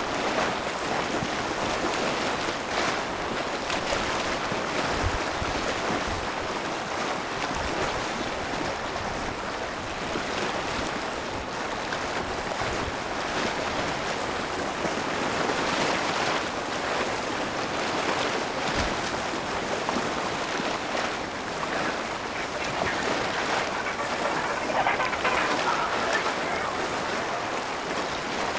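Sea water washing and rushing steadily, with gentle swells in level and no engine note or voices.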